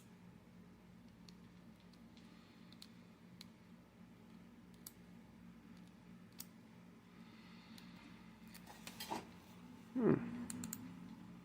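Faint, irregular small metallic clicks of lock picks working the pins of a Master padlock, over a steady low hum. About ten seconds in comes a short, louder sound with a falling pitch.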